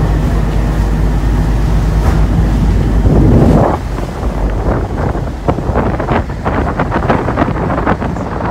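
Wind blowing hard across the microphone aboard a moving ferry, over a low steady rumble. A strong gust comes about three seconds in, followed by irregular buffeting.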